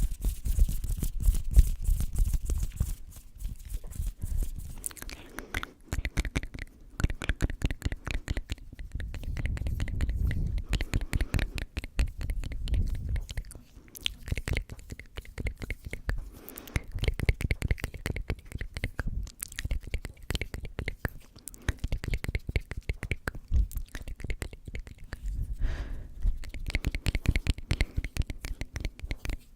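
Close-microphone ASMR sounds: a rapid, dense run of clicks and crackles, with stretches of low rumbling from hands moving against the microphone, and unintelligible whispering.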